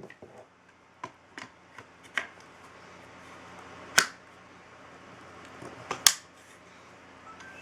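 Metal clicks and snaps of an AR-15 upper receiver being seated on its lower and the receiver pins pushed into place: a few light clicks, then two sharp snaps about four and six seconds in.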